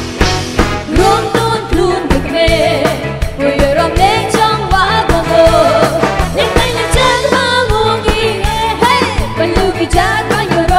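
Live band playing an upbeat dance song: a singer's voice enters about a second in over a drum kit keeping a steady beat, with snare and bass drum clearly audible.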